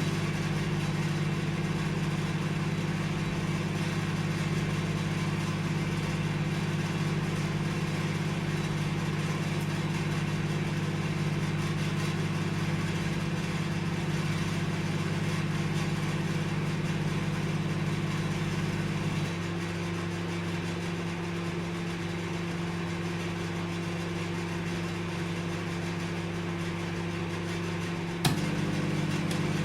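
Microwave oven running with a steady electric hum. Past two-thirds of the way through, the hum drops a little and thins; near the end a sharp click comes and the fuller hum returns.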